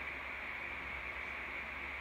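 Steady background hiss with a low hum underneath, a constant shop room tone with no distinct handling sounds.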